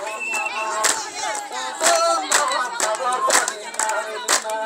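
Group singing and crowd voices, with short high held notes over it, and sharp percussive beats from clapping or drums striking at an uneven pace.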